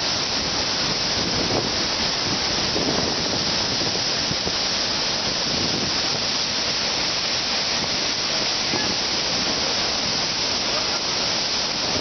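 Steady rush of water pouring down a large waterfall, Dudhsagar Falls, an unbroken hiss and roar with no change in level.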